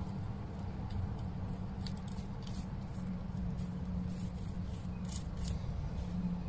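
Faint scratchy swishes of a paintbrush stroking paint across paper, over a steady low background hum.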